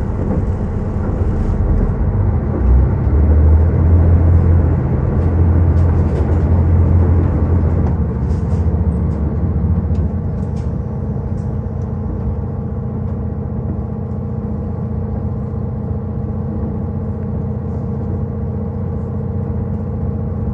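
Inside a KiHa 183 series diesel railcar on the move: a steady engine and running drone. It is heavier for the first half and eases to a lighter, even drone about ten seconds in, with a few faint clicks early on.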